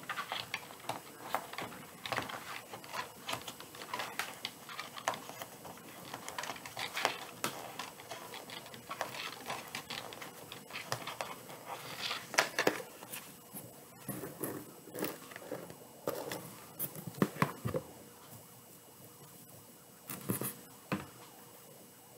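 Burlap and metallic deco-mesh wreath being handled: irregular rustling and crinkling with light taps and clicks, a few louder clicks about halfway through.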